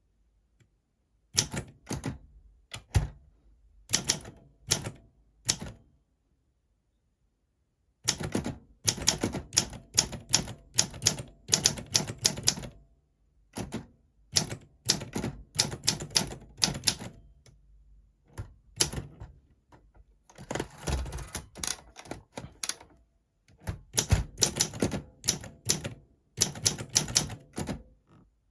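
Olympia SM4 portable manual typewriter being typed on: sharp key strikes come in irregular bursts, broken by short pauses.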